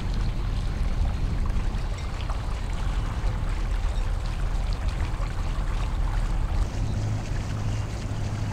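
A boat motoring slowly, with a steady low engine drone under a wash of water and wind noise.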